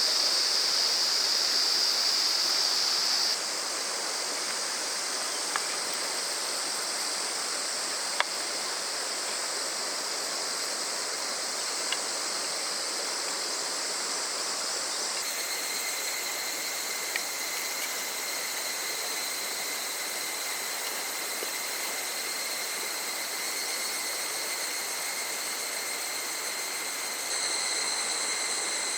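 Small river running steadily, with a constant high insect drone over it. The mix shifts abruptly a few times, and there are a few faint ticks.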